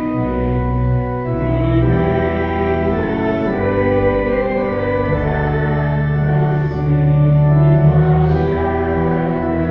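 Allen 600 Series digital church organ playing slow, sustained chords over a low pedal bass, the harmony changing every second or so.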